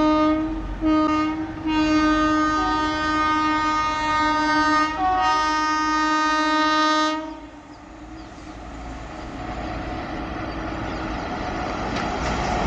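WAP-7 electric locomotive's horn sounding several blasts: a short one near the start, then two long ones of about three and two seconds. After the horn stops, the rumble of an approaching train grows steadily louder.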